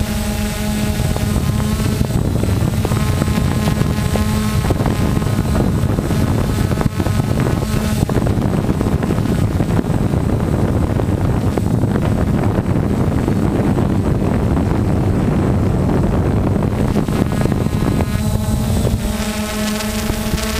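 DJI Phantom FC40 quadcopter's electric motors and propellers running steadily in flight, heard from the camera slung beneath it as a constant pitched hum. For several seconds in the middle a rushing wind noise on the microphone covers the hum, which comes back clearly near the end.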